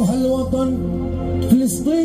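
Live Middle Eastern music played through a stage PA: a wavering, bending melody line over a steady low drone. There is a brief knock about one and a half seconds in.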